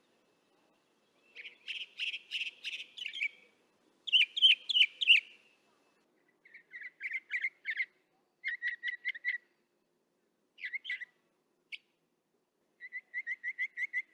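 Northern mockingbird singing, picked up through a parabolic microphone: a string of short phrases, each made of one note repeated several times in quick succession, switching to a different phrase every second or two, with brief pauses between them.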